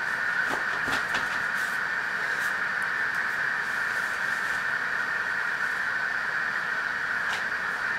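A steady, even hiss that does not change, with a few faint clicks about a second in and again near the end.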